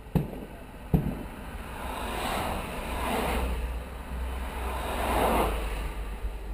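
Two sharp firework bangs in quick succession, then a rushing noise that swells and fades three times as cars drive past.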